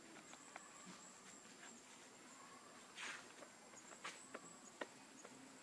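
Near silence: faint scattered ticks and a brief rustle about three seconds in as young macaques scuffle on dry leaves and dirt, over a thin steady high tone.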